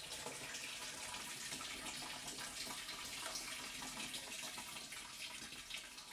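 Water running out of a gutter downspout and falling through a mesh screen into a plastic trash-can rain barrel, a faint steady trickle and splash that fades out near the end.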